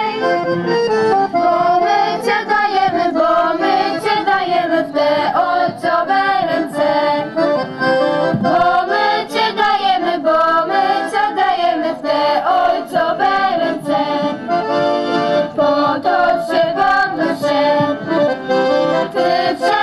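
Accordion music: a continuous melody over chords, with no breaks.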